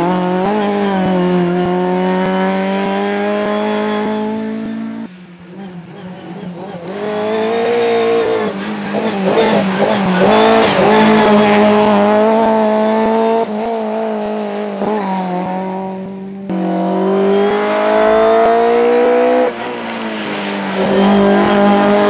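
Skoda Felicia 1600 Kit Car rally car's engine running at high revs, its note climbing under acceleration and dropping between gears as the car is driven hard past, with some tyre squeal. The sound changes abruptly several times where one pass is cut to the next.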